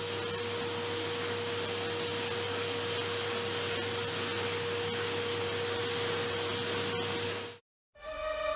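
Steady whooshing noise with a constant hum tone: a running motor-driven appliance. It cuts off suddenly near the end.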